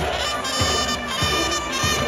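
Upbeat brass-led music with a steady thumping beat, accompanying a cheerleaders' pompom dance.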